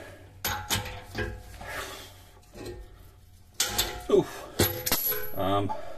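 Socket ratchet on an extension clicking and clanking against a rust-seized exhaust flange bolt: scattered sharp metal clicks, with a cluster of clinks past the middle, one ringing briefly.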